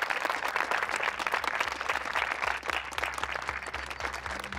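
A room of people clapping in applause. Music with a low steady beat fades in underneath from about a third of the way through.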